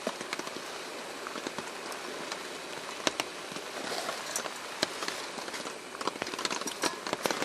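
Rain falling on a camping tarp overhead: a steady hiss with many sharp, irregular ticks of drops striking the tarp.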